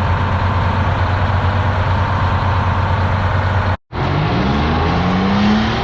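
Heavy diesel engine of a 24-ton well-drilling truck straining to pull the stuck truck free. It runs with a steady low drone, and after a short break about four seconds in it revs with rising pitch.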